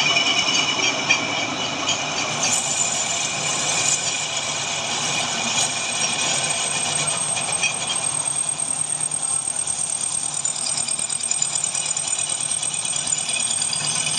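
Metal-turning lathe running with a steady rattling, clattering noise and a low hum; a thin high whine grows stronger about halfway through.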